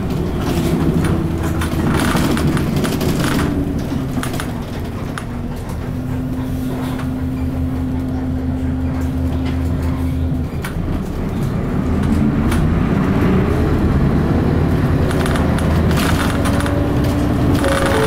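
Isuzu KC-LV380N city bus's V8 diesel engine heard from inside the cabin while driving. The engine note falls over the first few seconds, holds steady, then after a short dip about ten seconds in climbs steadily in pitch as the revs build.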